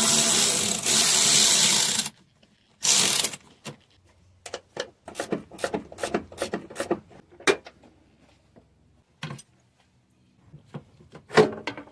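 Cordless electric ratchet running for about two seconds to back out a 14 mm engine-mount bolt, then a shorter second burst. A run of quick ratchet clicks follows, about four a second, then a few scattered clicks and one more short burst near the end.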